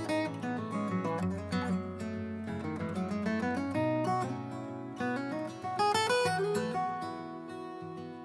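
Background music: acoustic guitar playing a gentle melody with strummed and plucked notes, softening near the end.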